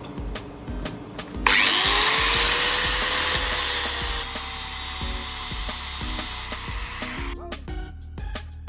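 A power tool starts abruptly about a second and a half in and runs for about six seconds with a loud hiss and a motor whine that rises as it spins up and then holds steady, before cutting off. Background music with a steady beat plays throughout.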